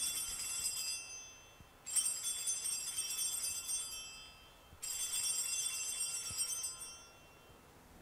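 Altar bells rung three times as the host is elevated at the consecration. Each ring is a high, bright shaken peal lasting about two seconds: the first is already sounding at the start, the next two begin about two and five seconds in.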